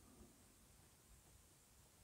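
Near silence: quiet room tone.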